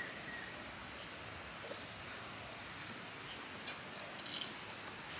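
Quiet rural outdoor ambience with a few faint short chirps and clicks: one falling chirp at the start, and a couple more about three and a half and four and a half seconds in.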